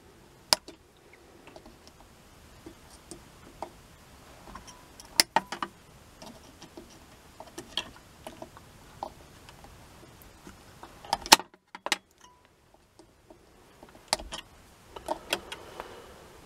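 Wire cutters snipping the leads to an old dual electrolytic capacitor under a valve radio chassis: several sharp separate snips at irregular intervals, the loudest two about eleven seconds in, with small metallic clinks and rattles of the tool against the wiring between them.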